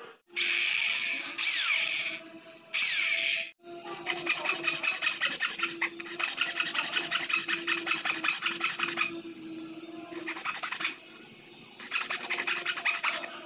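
Thin wooden board being sawn and scraped by hand with a small metal blade to cut out letter shapes: loud stretches of continuous rasping near the start and the end, with quick back-and-forth strokes in the middle.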